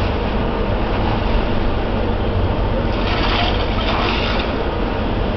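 Steady low rumble of a fire engine's diesel engine running its pump to feed the hose lines, with a brief hissing noise about three seconds in.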